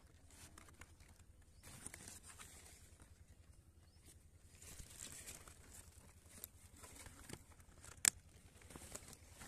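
Faint rustling and crinkling of cauliflower leaves and curd being handled, with one sharp click near the end.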